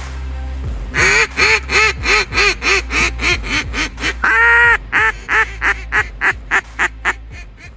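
A long run of loud, duck-like quacks, about four a second and coming a little faster toward the end, with one longer drawn-out quack midway. A steady low hum sits underneath.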